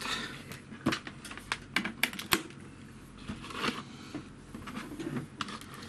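Scattered plastic clicks and rustling from an XB-866 pocket multimeter and its test leads being handled, with a few sharp clicks about a second in and a quick cluster around two seconds.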